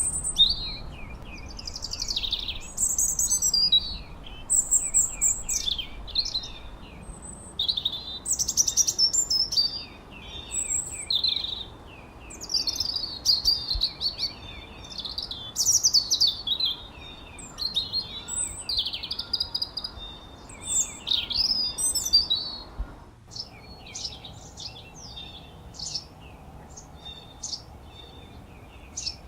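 Songbirds chirping and trilling, with busy, overlapping calls that thin to scattered short chirps for the last several seconds, over a faint steady background hiss.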